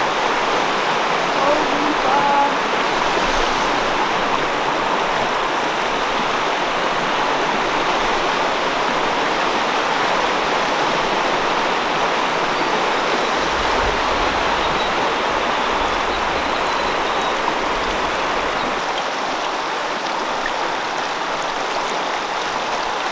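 Steady rush of flowing stream water, even and unbroken, with a low rumble for a few seconds past the middle.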